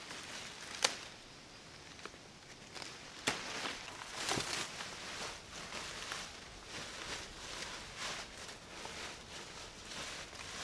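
A single sharp crack as a leafy branch is cut from the tree, then a second, smaller one about three seconds in. After that comes an irregular rustling of leaves and twigs as the cut leafy branches are handled and spread over dry leaf litter.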